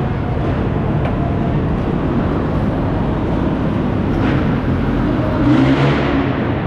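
Superbob bobsled ride's cars rumbling steadily round the track, with a swell about five and a half seconds in as the cars sweep past.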